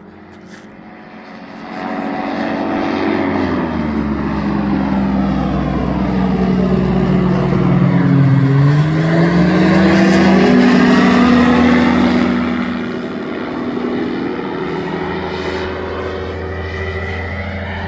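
Flex-wing microlight trike's engine and propeller passing low overhead, growing loud about two seconds in. The pitch sinks, then climbs again around the middle, where it is loudest, before easing off a little.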